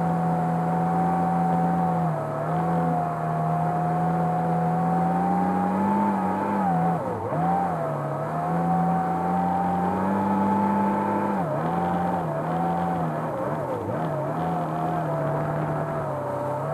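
Motorboat engine running at speed while towing a tube. Its steady pitch dips and recovers several times, over the rush of the wake.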